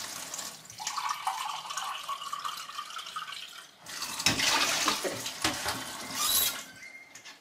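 Water running from a tap into a container for about three seconds, with a steady pitched ring to the flow, followed by louder irregular splashing.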